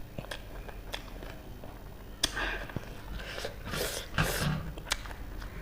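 Close-miked eating of spicy ramen noodles: scattered small wet chewing clicks, then a sharp click a couple of seconds in followed by several loud, hissy mouth-noise bursts in the second half.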